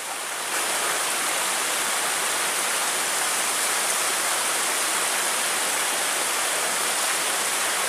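Steady rush of flowing river water, getting louder about half a second in and then holding even.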